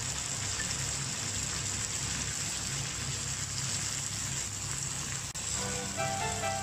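Steak cubes, tomato slices and myoga sizzling steadily in an iron frying pan. Background music comes in near the end.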